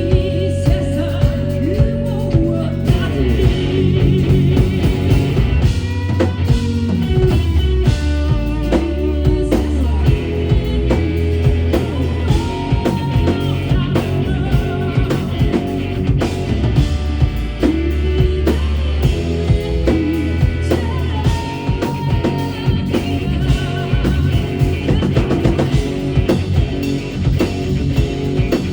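Live rock band playing a song: drum kit, bass and guitars with a singing voice over them.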